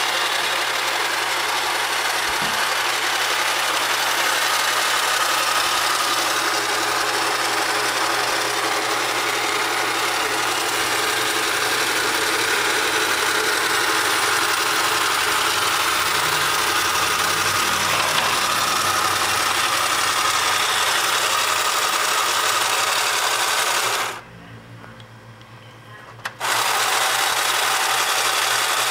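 Small battery-powered electric motor in a 1960 Ideal Astro Base toy running steadily with a mechanical whir and a low hum. It cuts out for about two seconds near the end and then starts again.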